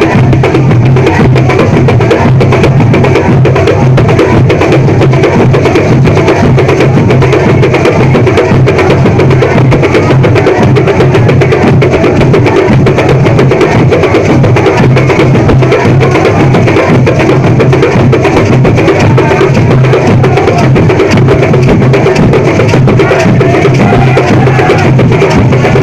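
Bumba-meu-boi percussion ensemble in the zabumba style, playing a dense, steady rhythm: deep drum strokes with clacking, wood-block-like strikes over them.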